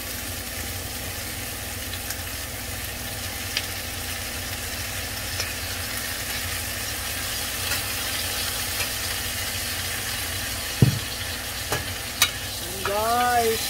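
Pieces of fish head and ginger sizzling steadily in a hot stainless steel pan, with a few sharp knocks of a metal spoon against the pan near the end as the pieces are stirred.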